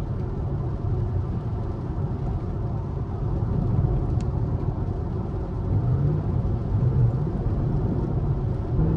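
Fifth-generation Chevrolet Camaro SS's 6.2-litre V8 running at low revs while driving, the revs rising briefly a couple of times in the second half.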